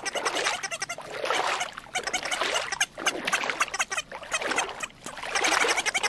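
African penguins braying: a run of harsh, rasping calls, about one a second.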